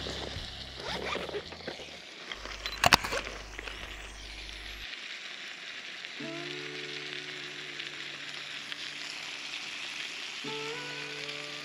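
A steady sizzling hiss, with a few sharp clicks about three seconds in. Soft background music with sustained held notes comes in about halfway.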